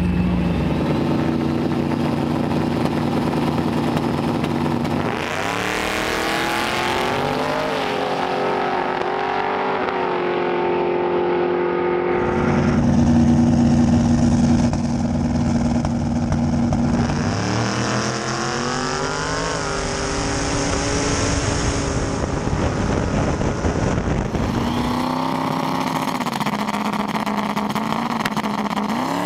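Drag cars' engines idling on the start line and revving as they launch down the strip, rising in pitch with each run. Several runs follow one another, the last launch beginning near the end.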